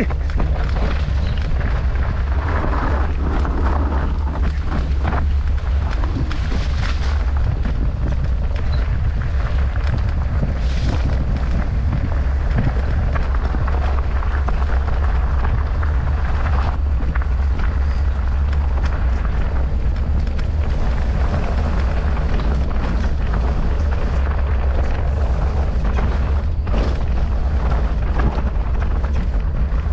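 Steady wind rumble blasting a mountain biker's camera microphone on a fast trail descent. Tyre noise and frequent small knocks and rattles come from the bike running over rough ground.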